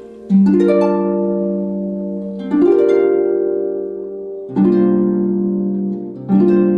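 Solo harp playing a slow passage: a group of plucked notes about every two seconds, each left to ring and fade before the next.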